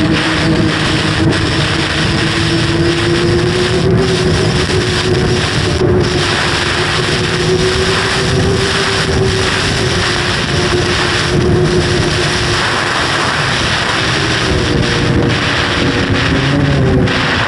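Snowmobile engine running steadily at trail speed, heard from on board under heavy wind rush on the microphone. Its pitch holds mostly even and wavers slightly near the end.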